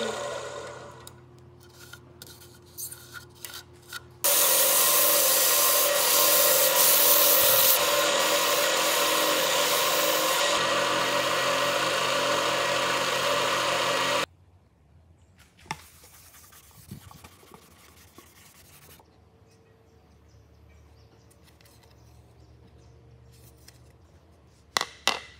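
A cloth pressed against a zelkova plate spinning on a wood lathe to rub on finish: a loud, steady rubbing hiss over the lathe's hum for about ten seconds, cutting off abruptly. Before it, the gouge cut fades out with a few light clicks. After it, quiet with a few faint knocks and two sharp clicks near the end.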